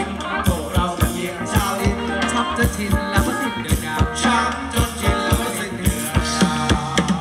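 Thai ramwong dance music from a live band over loudspeakers, with a steady drum beat.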